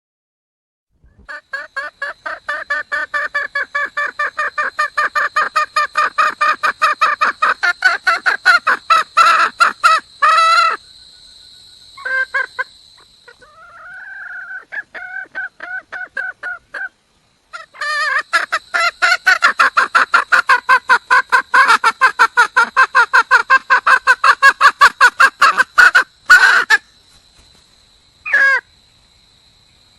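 Red junglefowl hen calling for a mate: two long runs of rapid repeated cackling notes, about four or five a second, with a few separate wavering calls in the pause between them and a single call near the end.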